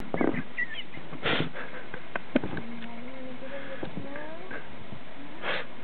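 A person's wordless voice making drawn-out sounds, one held and then rising near the middle, with a few short breathy puffs and a sharp click.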